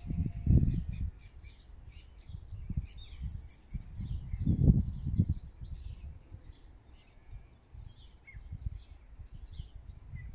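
Small birds chirping and singing, with a fast high trill about three seconds in. Bursts of low rumble come and go beneath them, strongest about half a second in and again near the middle.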